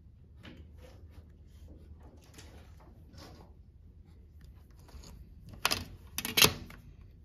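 A pencil drawing lines on paper along a drafting straightedge, a few faint scratchy strokes, then two loud plastic clacks near the end as a clear plastic drafting triangle is picked up and handled against the drafting board.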